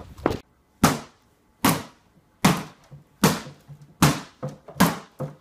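A child's fist banging on a flat-screen TV: sharp thumps in an even series, about one every 0.8 seconds, with a few lighter taps between them.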